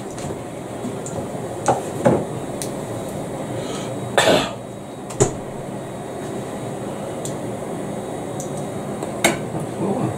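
Haggis slice and egg frying in pans on a gas hob, a steady sizzle, broken by a few short knocks and clacks of pans and utensils on the metal hob; the loudest, longer clatter comes about four seconds in.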